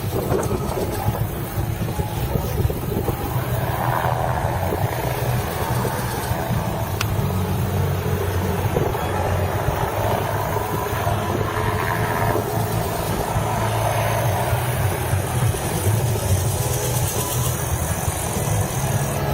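Helicopter running, its rotor chop and engine steady and loud throughout.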